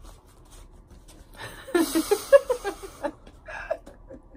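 Young woman laughing and sputtering breath through a face full of whipped cream just pushed into it from a paper plate. The outburst starts about a second and a half in, lasts about a second, and is followed by a short laugh.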